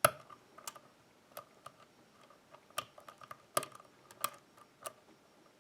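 Irregular small metallic clicks of a hook pick working the pin stacks of a pin-tumbler lock under light tension, with pins clicking as they are lifted and set.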